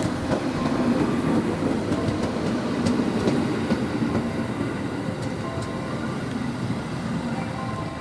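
JR 213 series electric multiple unit running past on the adjacent track: a steady rumble of wheels and running gear that swells as the cars go by, then eases off.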